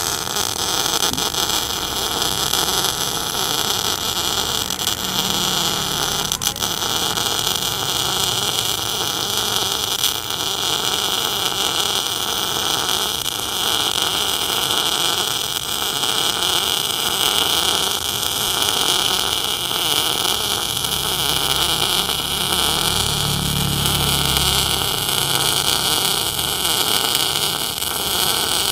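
MIG welding arc from an NBC-288 multifunction welder laying one continuous bead on flat plate, a steady, unbroken sizzling noise with no pauses.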